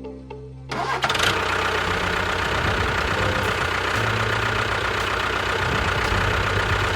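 Engine starting up about a second in, then running steadily with a dense, noisy sound, over background music.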